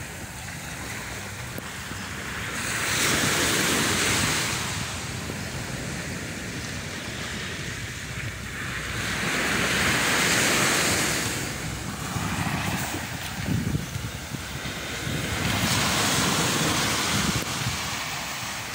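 Small waves breaking on a sandy beach, surging in three times as a swelling, fading hiss of surf. Wind buffets the microphone underneath.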